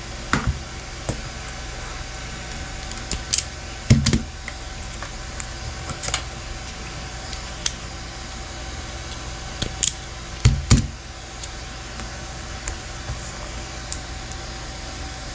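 Irregular small clicks and taps of hands handling a cut UTP network cable and tools, with a louder knock about four seconds in and two close knocks past the middle. A steady fan hum runs underneath.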